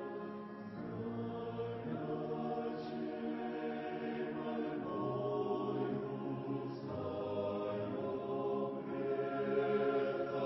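Slow choral hymn: a choir singing long, held chords that change every second or two.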